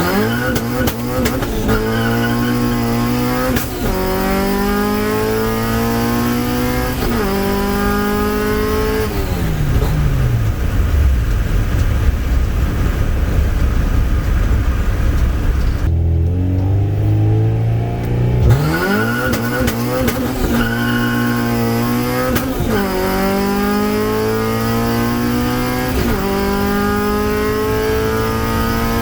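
H2B Honda Civic's four-cylinder engine pulled hard through the gears twice: the engine note climbs steadily and drops back at each upshift. Between the two pulls it slows and falls to a low steady run.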